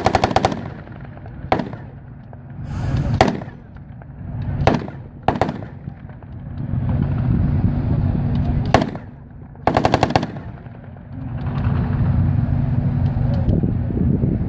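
Machine guns firing short bursts of automatic fire, about three quick bursts with several single shots between them. A vehicle engine runs steadily underneath in the second half.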